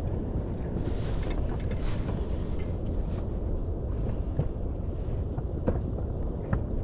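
Steady low rumble around a small inflatable boat at sea, with a few light clicks and taps from hands working a fishing rig.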